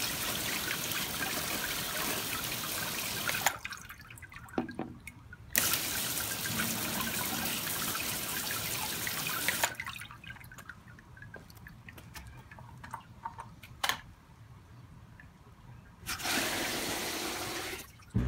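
Garden hose spray nozzle spraying water onto a turtle's shell on a drain grate, in two long bursts, with water dripping through the grate in the pauses. Near the end, a short rush of water.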